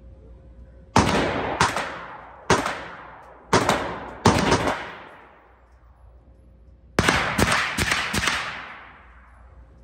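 Handgun shots echoing through an indoor shooting range, each followed by a long reverberant tail. Single shots come about once a second for the first few seconds, then a fast string of about six shots about seven seconds in.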